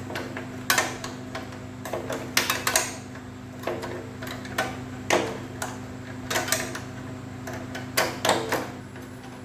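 Hand tools and metal bolts clicking and clinking irregularly as bolts are taken out of a small engine's cover, about ten sharp clicks, some in quick pairs. A steady low hum runs underneath.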